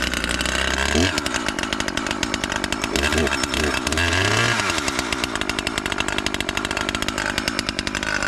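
Husqvarna 540 XP Mk III two-stroke chainsaw running on its first cold start, just after catching. Its engine speed rises and falls briefly a few times in the first half, then it settles to a steady run. The AutoTune has not yet set itself.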